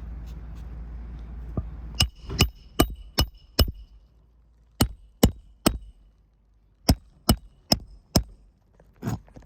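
Hammer driving roofing nails into an asphalt shingle: about a dozen sharp strikes in quick groups of three to five, roughly two or three a second, with a light metallic ring after the first ones.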